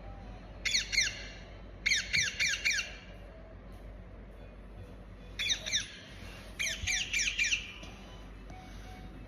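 Parrot squawking in four short bursts, each a quick run of two to four calls that fall in pitch.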